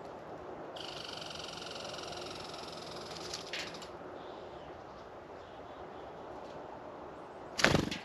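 Steady outdoor background hiss with a faint high buzzing tone from about one to three and a half seconds in, then a sharp knock near the end followed by a smaller one.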